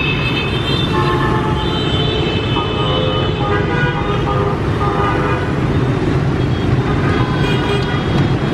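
Dense motorbike and car traffic heard from a moving motorbike: a steady rumble of engines and road noise, with horns beeping again and again at several pitches.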